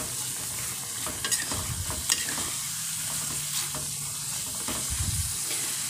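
Chicken gizzards in thick balado chili sauce sizzling in a pan as a metal spoon stirs them, with a few sharp scrapes of the spoon against the pan.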